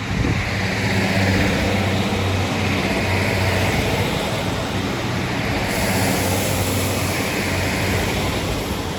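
Diesel train passing through the station: a steady engine hum with rushing wheel-on-rail noise.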